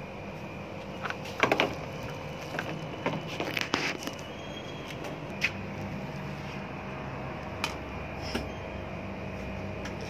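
Clicks and clatter of hand tools and wiring being handled while a washing machine's motor capacitor is fitted: a burst of sharp clicks in the first few seconds, then single clicks every few seconds, over a steady background hum.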